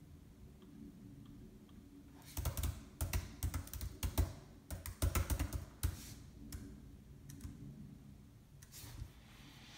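Quick run of clicks and taps from hands working at a desk, dense from about two to six seconds in, then a few scattered ones.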